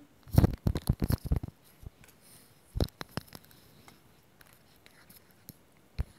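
Plastic toy pony figures handled and set down on a hard floor: a quick run of clicks and knocks in the first second and a half, then a few single knocks about three seconds in and near the end.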